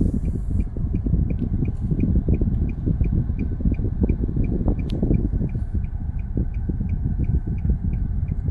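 Car cabin noise while driving slowly on a rough village road: a dense low rumble, with a steady high ticking just over three times a second.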